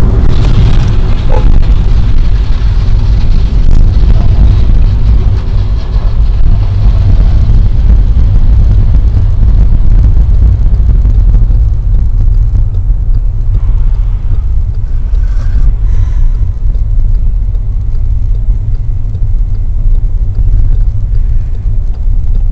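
Steady low rumble of a car driving, engine and road noise heard from inside the cabin through the dashcam's microphone.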